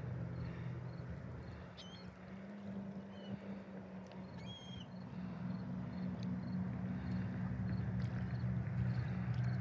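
Motorboat engine running steadily, a low even hum, with a couple of faint high bird chirps about two and four and a half seconds in.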